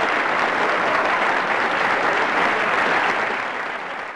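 Audience applauding, a dense steady clapping that begins to fade in the last second.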